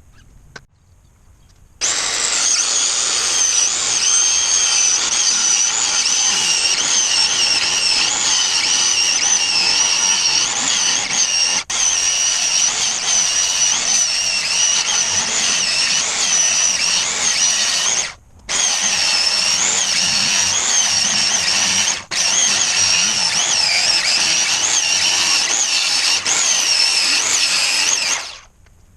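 Power tool running with a high whine that wavers in pitch as it works. It starts about two seconds in, stops briefly about two-thirds of the way through, and cuts off near the end.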